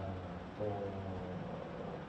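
A man's voice, low and indistinct, in a pause between spoken phrases, over a steady background hiss.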